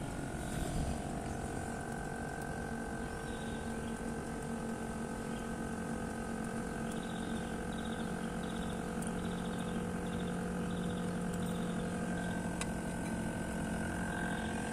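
Daikin split air conditioner's outdoor unit running steadily, its compressor and fan making a hum of several steady tones, while it pumps the refrigerant down into the outdoor unit with the liquid-line valve closed and the suction pressure falling. One of the tones rises slightly near the end.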